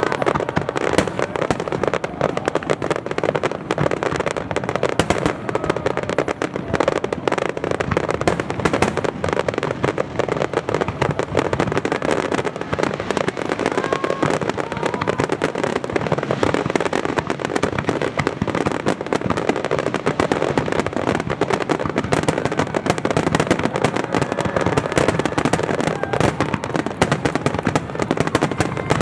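Fireworks display at its height: a dense, continuous barrage of shell bursts and crackling that never lets up.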